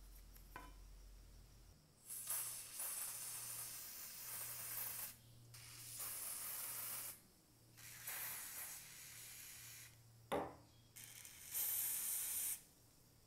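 Aerosol can with a straw nozzle spraying onto rusted bolts in four hissing bursts, each one to three seconds long. A sharp click comes between the third and fourth bursts.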